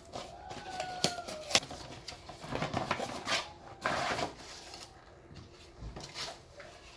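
Unboxing handling sounds: two sharp clicks, then bouts of rustling and scraping from packaging being moved about.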